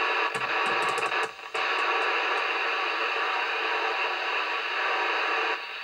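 Binatone Route 66 CB radio's speaker hissing with receiver noise while its rotary channel selector is clicked round to channel 19. Several sharp clicks come in the first two seconds, and the hiss cuts out briefly about a second and a half in. The level drops again just before the end.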